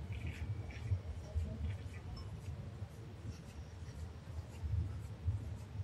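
Wind buffeting the microphone in an uneven low rumble, with faint footsteps and scratchy ticks on the pier's concrete deck.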